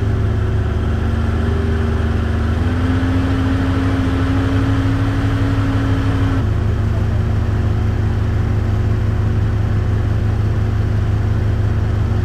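Skid steer engine running steadily under way, with a whine that rises in pitch about three seconds in and drops again a little past halfway.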